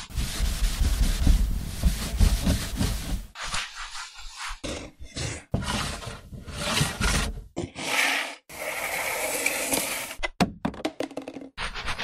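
A run of separate foley recordings of hard objects being dragged and scraped across a surface, each lasting a second or few with short gaps between. Near the end comes a burst of quick knocks.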